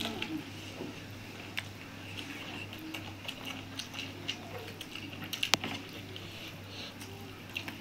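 Quiet eating sounds of rice and curry being eaten by hand from steel plates: chewing, soft mouth clicks and fingers working the food, with one sharper click about five and a half seconds in.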